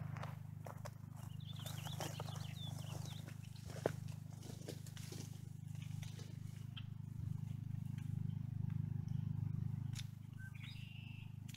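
Dry phragmites reed stalks crackling and snapping as a person pushes into the reed stand to cut them, over a steady low rumble. A bird twitters a little after the start and again near the end.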